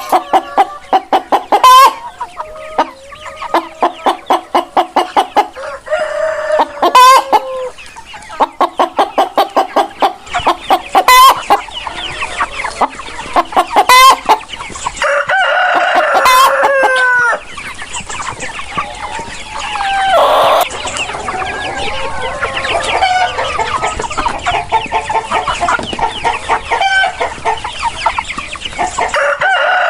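Chickens clucking in fast runs of sharp, repeated calls, with a rooster crowing a couple of times. Each crow ends in a falling note.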